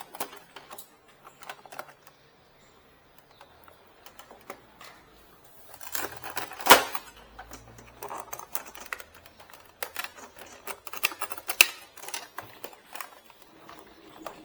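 Plastic clicks, taps and snaps of an Epson L120 inkjet printer's casing being handled and its side cover pried off its latches. The loudest snap comes about seven seconds in, with another sharp one near twelve seconds.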